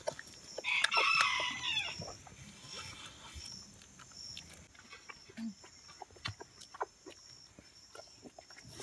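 Calf suckling at a cow's teat, with small scattered wet clicks of sucking. About a second in, a farm animal calls once, a pitched cry lasting just over a second, which is the loudest sound.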